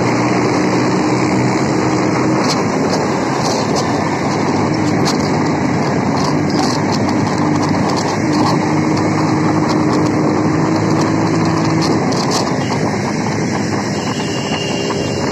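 Motorcycle engine running steadily at road speed, heard from on the moving bike, with wind rushing over the microphone.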